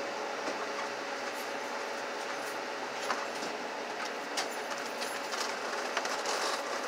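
Steady mechanical background hum with a faint constant tone, with rustling and small knocks as a hoodie brushes against the phone and the phone is handled, starting about a second and a half in.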